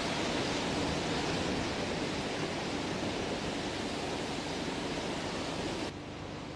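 Strong dust-storm wind, a steady heavy rushing noise that cuts off suddenly near the end, giving way to the low steady hum heard inside a car.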